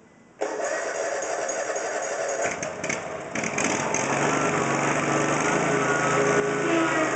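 Lawn mower's small engine starting suddenly about half a second in, then running steadily at speed.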